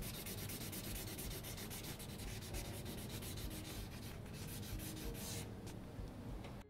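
Alcohol marker tip scrubbing across paper in quick, repeated back-and-forth strokes while colouring in an area.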